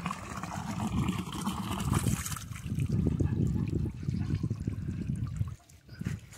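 Water pouring from a pipe into a full concrete trough, a low splashing gurgle that stops about five and a half seconds in.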